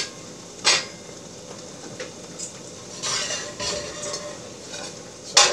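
Metal clinks of a stainless steel skillet and utensils: a couple of sharp clinks near the start and another near the end, over the soft simmer of clams, fish and broccoli cooking in a wine-butter sauce.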